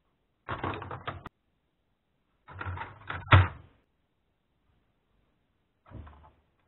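Plastic laptop case parts being handled and set down: three short bursts of clattering, the middle one ending in a sharp knock about three seconds in.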